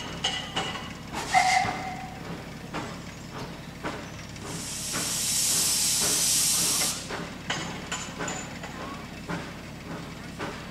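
Vale of Rheidol narrow-gauge steam tank locomotive standing in steam, letting off a loud hiss of steam for about two and a half seconds in the middle, with scattered light knocks around it.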